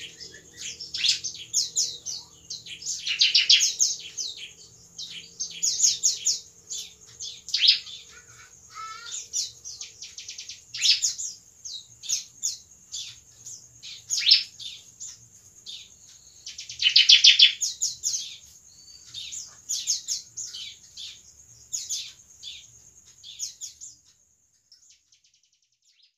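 Bar-winged prinia (ciblek) singing: repeated bursts of high, rapid chirps and trills, loudest around 3 to 4 seconds and 17 to 18 seconds in, stopping about two seconds before the end.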